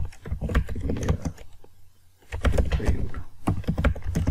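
Typing on a computer keyboard: a quick run of key clicks that stops for about half a second midway, then starts again.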